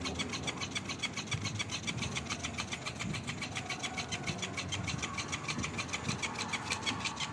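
Electric flopping-fish cat toy running, its small motor whirring and the tail flapping with a fast, even ticking rhythm.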